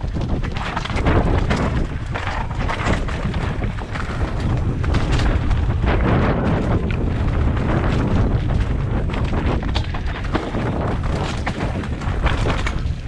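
Mountain bike riding over rough ground: wind buffets the camera microphone with a heavy low rumble, and the bike rattles and knocks constantly over the terrain.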